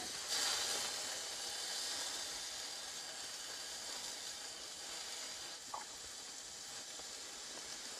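Steak sizzling on a titanium diffuser plate over a small gas burner, louder for the first few seconds and then settling to a softer steady sizzle. A light tap partway through.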